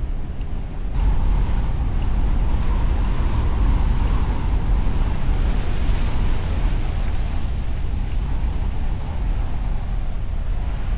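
Storm-chase vehicle driving a muddy back road, heard from inside the cab: a steady low tyre and road rumble with a wash of noise that grows louder about a second in.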